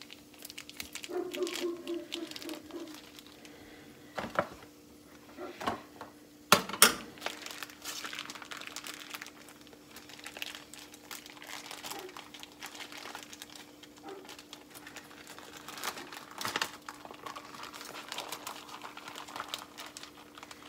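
Plastic bacon packaging crinkling as it is handled, with a few sharp snips of scissors cutting the bacon, the loudest a little before halfway through.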